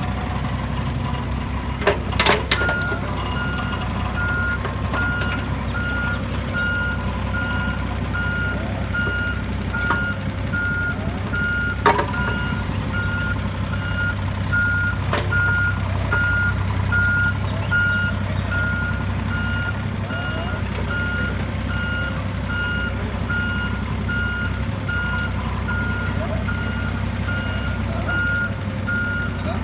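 Excavator running with its travel alarm beeping over and over, the beeping starting a couple of seconds in over the steady hum of the diesel engine. A few sharp clanks sound among the beeps.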